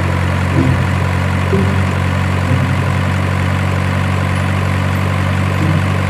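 Hino Dutro tanker truck's diesel engine idling steadily.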